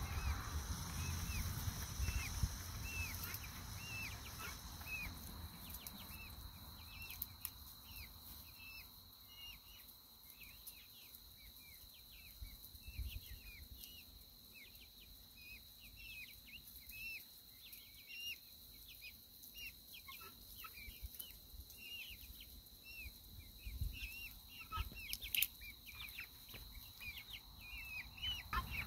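Chicken calling with short, high, down-slurred notes, one or two a second, coming thicker toward the end.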